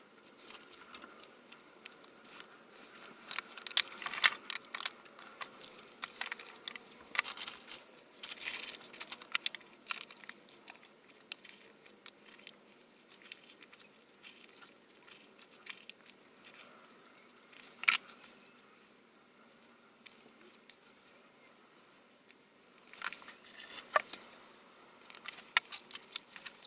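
Scattered rustles, crinkles and light clicks of hands handling clear plastic tubs, soil-like substrate and moss, with a few sharper knocks and a quieter lull in the middle.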